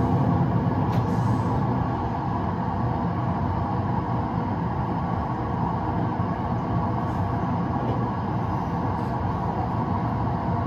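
Train-driving simulator playing the steady running noise of an electric train at about 88 km/h: a continuous low rumble of wheels on rails and running gear, with no distinct clicks or announcements.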